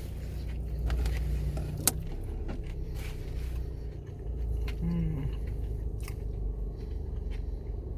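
Car engine idling, heard from inside the cabin as a steady low hum, with a single sharp click about two seconds in.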